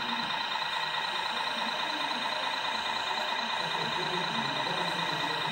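Steady engine-like drone from radio-controlled scale models, a Zettelmeyer ZL 4001 wheel loader and a CAT 740 articulated dump truck, running while the loader tips a bucket into the truck.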